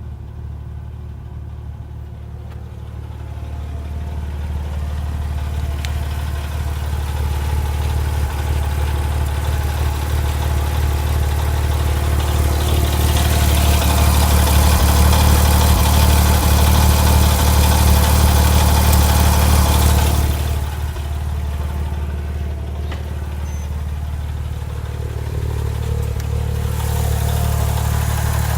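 Porsche 997 Turbo (Mk1) twin-turbo flat-six idling warm, with a ticking noise that the owner finds curious and that shows up once the oil is warm. The engine sound grows louder through the first half and drops suddenly about two-thirds in.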